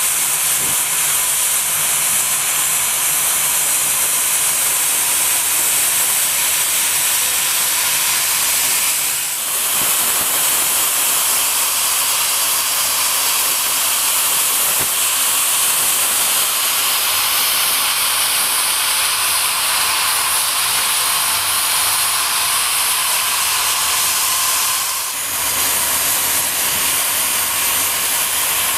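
Steam hissing steadily from a standing traction engine, easing off briefly twice.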